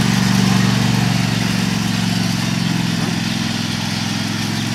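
Craftsman DGT6000 garden tractor engine running steadily while the tractor drives across the lawn. Its sound eases slightly as it moves away.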